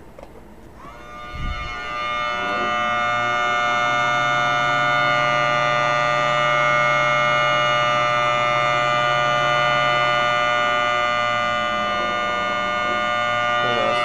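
Homemade 3D-printed miniature Thunderbolt tornado siren sounding with its blower on and its horn held still. It winds up in pitch about a second in, then holds a steady, loud, many-toned note over a low motor hum. Near the end the pitch wavers, with the blower sounding like it's having trouble staying on.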